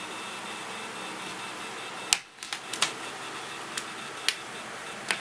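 A steady hiss, then about two seconds in a run of sharp, irregular clicks and taps: a few close together, then more spaced out.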